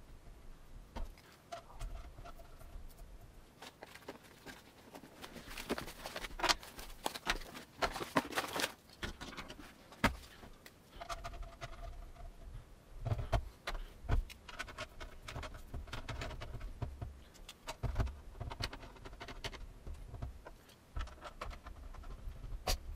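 Plastic router antennas being screwed by hand onto their threaded metal connectors: irregular clicks, taps and scraping of plastic on metal.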